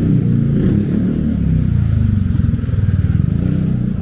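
A motor vehicle's engine running loud and close, its low rumble rising and falling in pitch.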